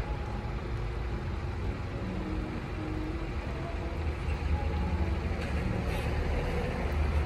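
A steady low mechanical hum runs throughout, with a few faint licks and smacks from a cat lapping wet tuna close to the microphone about five and a half seconds in.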